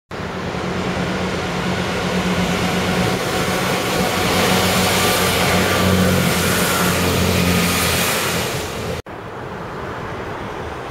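Chiltern Class 165 diesel multiple unit passing close beneath, its diesel engines giving a steady low drone over the wheel and rail noise. It grows louder to a peak about six seconds in, then cuts off sharply about nine seconds in, leaving a much quieter background.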